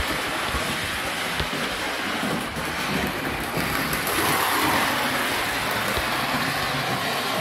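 Lionel O-gauge Pacific Electric trolley running on three-rail model track: a steady rolling rumble of its wheels and motor with scattered light clicks, swelling louder about four seconds in as it passes close.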